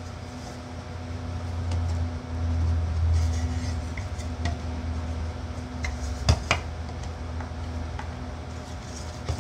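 Wooden box-lid parts and a small tool handled on a workbench: light clicks and taps, with a sharper double knock about six seconds in, over a steady low hum.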